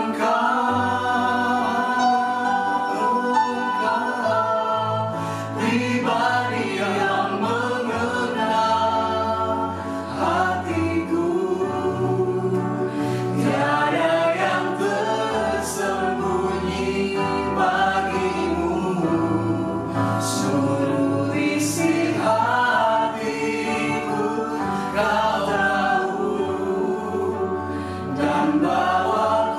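Small worship team of men's and women's voices singing a slow Indonesian praise song together in held notes, over electric keyboard chords with sustained bass notes that change every several seconds.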